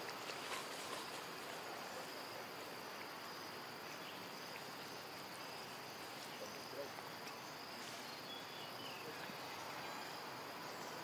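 Steady high-pitched insect drone over an even background hiss, with a few faint clicks.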